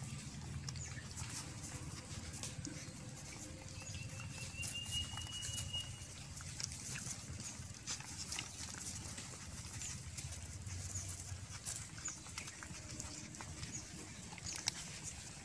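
Six puppies suckling from a standing mother dog: scattered small wet smacking and sucking clicks, with a thin high whine about four seconds in.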